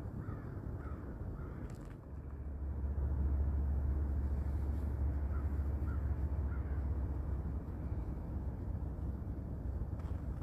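A few short bird calls in two brief runs, one near the start and one around the middle, over a steady low rumble that grows louder about two seconds in.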